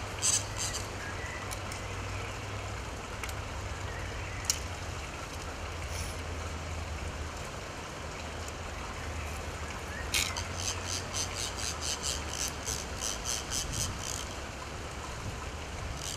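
Steady low rumble of outdoor background noise, with a few single sharp clicks and, about ten seconds in, a quick run of clicks at about three or four a second.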